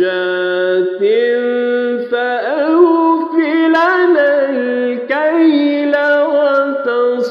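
A man's voice chanting Quranic recitation in melodic tajweed style. He draws the words out in three long phrases, with ornamented turns and glides in pitch and short breaks about two and five seconds in.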